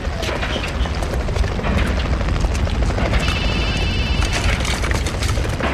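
Mobile phone ringing with a high trilling ring of about a second, starting about three seconds in, over a steady low rumble.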